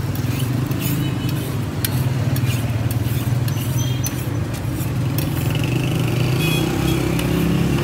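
Beef chapli kababs frying in a large shallow pan of oil, with many short crackles, over a steady low rumble of street traffic.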